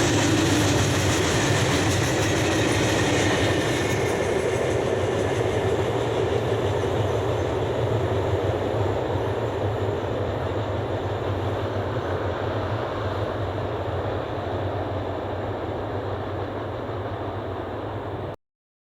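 Freight train wagons rolling past on the rails, a steady rumble that slowly grows fainter, the high hiss dropping away about four seconds in. The sound cuts off abruptly near the end.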